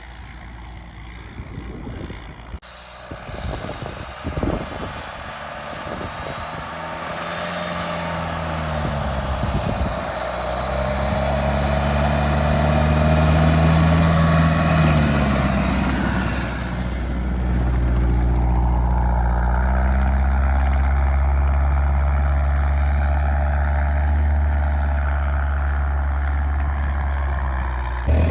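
Tucker 1544 Sno-Cat's swapped-in Isuzu 4BD1T turbo diesel engine running under load as the cat drives through deep snow, growing louder over the first half, then holding steady.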